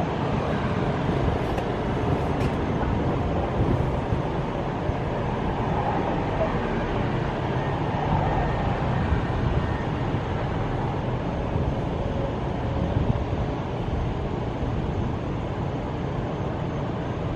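Helicopter running, a steady low rumble that eases slightly near the end.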